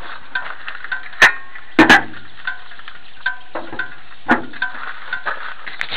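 Steady hiss of a car's ventilation fan blowing through the dashboard vent, with irregular sharp clicks and rattles over it, the loudest just over a second in, twice near two seconds and just past four seconds.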